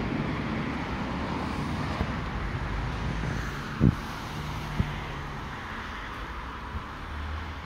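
Road traffic going by: a steady wash of tyre and engine noise, with a single thump about four seconds in.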